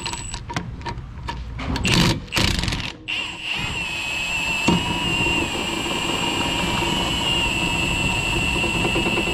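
Impact wrench running continuously on the rear strut's lower mounting bolt from about three seconds in, after a few clicks and clatters as the tool and extension are fitted onto the bolt.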